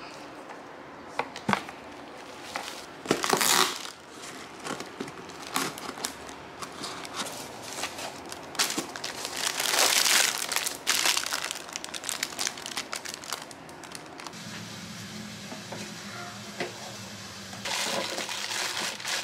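Plastic packaging crinkling and a cardboard box rustling as a parcel is unpacked by hand, in many short irregular bursts. Near the end a steady low hum comes in, and frozen fries rustle as they are tipped from a plastic bag into an air fryer basket.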